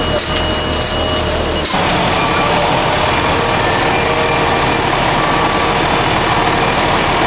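Ready-mix concrete mixer truck's diesel engine running loud and steady as it works. There are a few short hisses in the first second.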